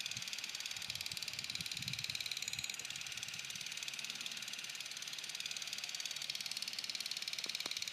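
Steady high-pitched buzzing of an evening insect chorus, with a very rapid, even pulse and no letup. A little low rumble comes early on, and a couple of faint clicks come near the end.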